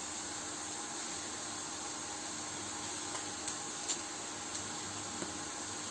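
Chef's knife slicing raw chicken breast on a plastic cutting board, giving a few faint taps about three to five seconds in, over a steady hiss with a low hum.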